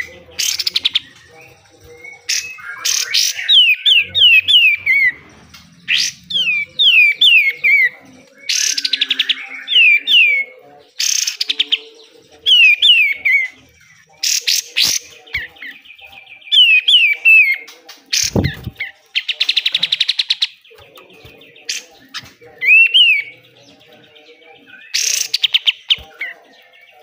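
A kapas tembak songbird sings loudly in a "besetan" song. Runs of three or four quick falling whistled notes alternate with harsh, buzzy rasping bursts. A single low thump comes about two-thirds of the way through.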